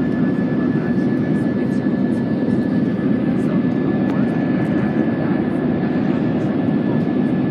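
Steady roar of an Airbus A320-family jet airliner's engines and airflow, heard inside the cabin as it climbs after takeoff, with a thin steady whine above the roar.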